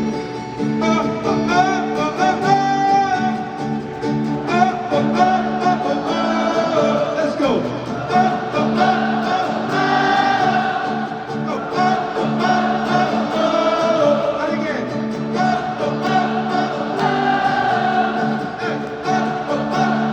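Large concert crowd singing a melody together over strummed guitar chords.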